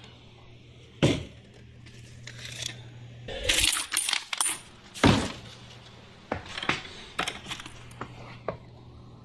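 Loose quarters clinking and rattling in a plastic bucket as it is handled, with several sharp clatters, the loudest about five seconds in, and lighter clicks after.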